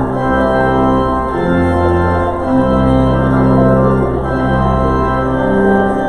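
Organ postlude: sustained chords, with the bass note changing every second or two.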